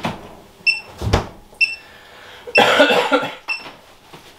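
Herpstat 1 reptile thermostat's low-temperature alarm beeping about once a second, a short high beep each time, because the incubator's temperature has dropped below the alarm setting after its door was opened. A sharp knock about a second in and a cough near the middle.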